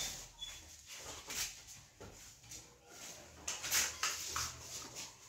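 Irregular scuffing footsteps and rustling from a handheld phone being carried: a handful of short, hissy scrapes spaced about a second apart, loudest a little before the end.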